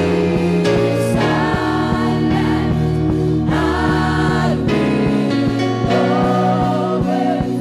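Gospel worship song with singers holding long sustained notes over a band accompaniment and a steady beat.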